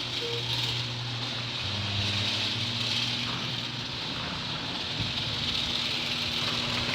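Genie ScrewDrive garage door opener running as it raises the door: a steady motor hum with a loud hissing whir from the screw drive.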